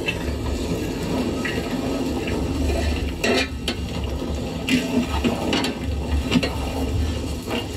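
Wooden spoon stirring chopped okra in a metal bowl, with a scattering of knocks and scrapes against the bowl, most in the second half.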